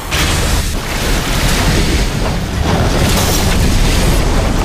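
Film sound effect of water bursting from burst pipe joints and gushing in torrents onto a stage floor: a loud, continuous rush of water with a deep rumble underneath.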